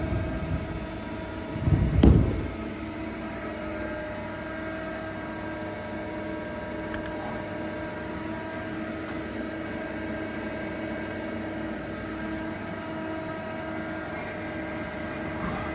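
Mazak SQT CNC lathe running, a steady machine hum with several held whining tones. A single heavy low thump comes about two seconds in, and a faint high whine joins near the end.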